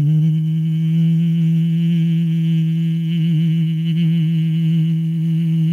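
A beatboxer holding one long, loud hummed bass note at a steady pitch, a slight wobble creeping in after about three seconds.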